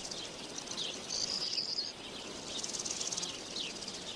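Woodland ambience: insects trilling steadily, high and rapidly pulsing, louder for about a second near the start, with two short falling bird chirps.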